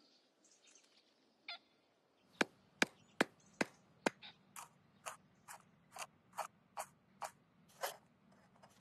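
Hand tools working a wooden gunstock: a metal punch tapped sharply into the wood about two or three times a second, then softer, slightly longer strokes as a chequering tool cuts the grip. A faint low hum sits under the strokes.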